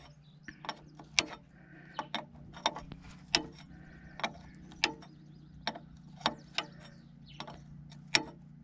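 Steel wrench clinking on a hydraulic fitting nut: a dozen or so sharp, irregular metal clicks as the nut is turned a little at a time and the wrench is set back on, over a steady low hum.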